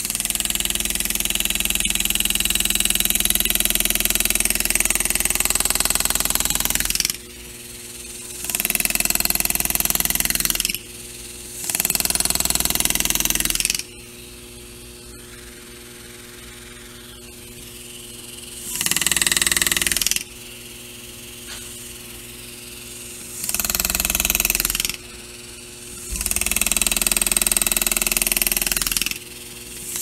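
Air-powered engraving handpiece hammering a graver into a metal door handle in bursts, a long first run of about seven seconds and then five shorter runs of one to three seconds with pauses between. A steady low hum runs underneath.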